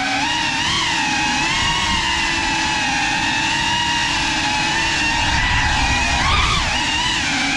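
GEPRC Cinelog35 6S ducted cinewhoop's brushless motors whining, the pitch swooping up and down with the throttle in the first second, holding nearly steady for a few seconds, then swooping again near the end.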